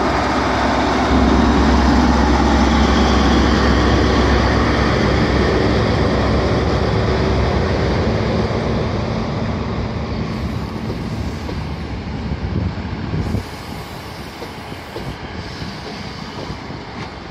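Diesel engine of a Class 43 HST power car on Network Rail's New Measurement Train working hard as the train pulls away and passes, a deep steady drone. It fades as the power car draws away and drops sharply about thirteen seconds in, leaving the quieter rumble of the coaches rolling by.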